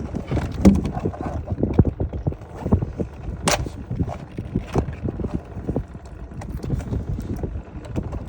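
Rapid, irregular clicking and knocking of hard objects being handled, over a low rumble, with one sharp, bright click about three and a half seconds in.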